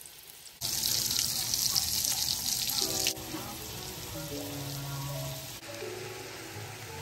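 Meatballs sizzling loudly in hot oil in a frying pan for about two and a half seconds, starting just after the beginning and cutting off abruptly. After that only soft background music with a gentle melody.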